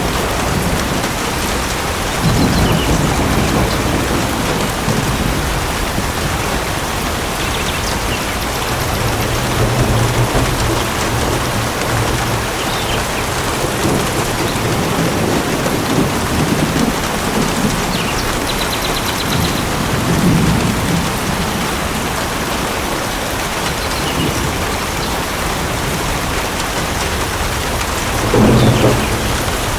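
Steady rain falling, with low rumbles of thunder rolling in several times; the loudest rumble comes near the end.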